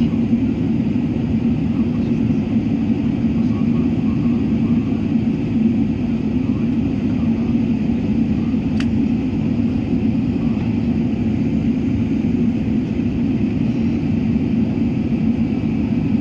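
Cabin noise of an Airbus airliner climbing after takeoff: a steady low engine and airflow rumble. A single brief click about nine seconds in.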